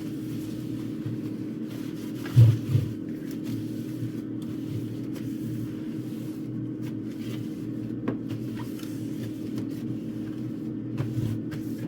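Steady low hum, with two knocks about two and a half seconds in and lighter clicks and knocks later, as a fridge is wiped down and things in it are handled.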